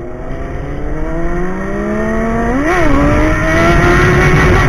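Sportbike engine accelerating hard, its pitch climbing steadily and getting louder, with a quick gear change about two and a half seconds in. A low rush of wind runs underneath.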